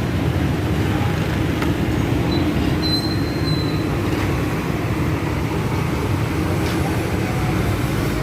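Honda SH scooter engine idling steadily while it warms up. The radiator fan is switched by engine temperature, so it waits for the engine to get hot before it runs.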